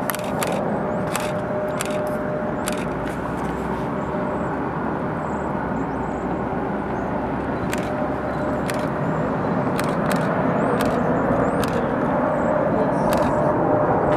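Distant aircraft engine drone from a plane on approach, a steady rumble with a constant hum that grows louder over the last few seconds. Sharp clicks sound every second or so.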